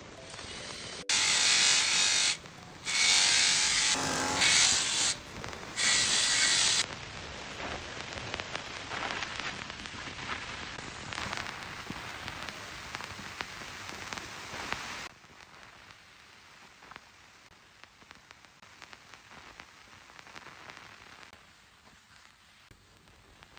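Woodworking power tool on wood, running in four short loud bursts, then a quieter steady working noise that drops away about fifteen seconds in.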